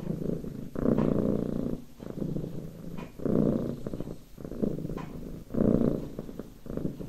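Domestic cat purring steadily, the purr swelling and fading with each breath, a louder swell about every two seconds alternating with softer ones.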